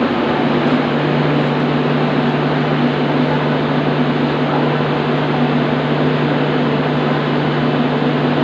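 Diesel generator set in an LHB train's power car running steadily: an even, unchanging engine drone with a constant low hum.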